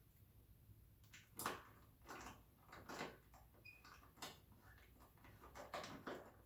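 Faint, irregular clicks and knocks of a bolt and washer being fitted and tightened by hand on a car's hood hinge bracket.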